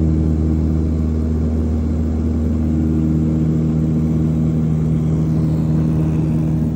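Propeller airplane's engine and propeller droning steadily, heard from inside the cabin: a loud, even low hum made of several held notes.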